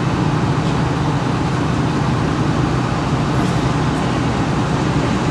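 Steady low rumble of motor vehicles and road traffic, loud and unchanging.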